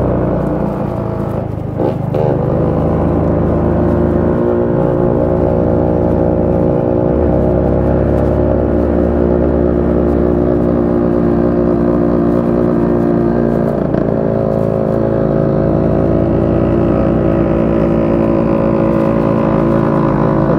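Small motorcycle engine running steadily under way, heard from on board the bike. Its pitch shifts briefly a few times in the first seven seconds, then holds even.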